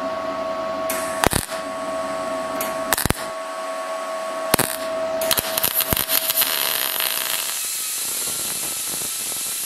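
MIG welder laying spot welds on a steel door patch: three brief crackles about a second and a half apart. From about halfway in, a small die grinder grinds the welds down with a steady high hiss.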